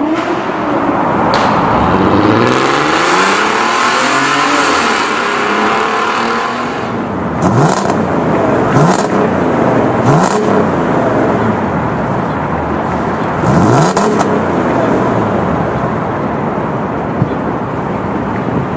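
Porsche 958 Cayenne engine through a Fi aftermarket exhaust, revved while standing. There is one long rise and fall in pitch over the first six seconds or so, then four quick throttle blips, and it settles to a steady idle for the last few seconds.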